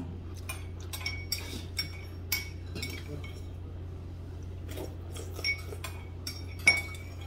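Cutlery clinking against dishes and bowls during a meal: a run of short, sharp clinks with brief ringing, the loudest near the end, over a steady low hum.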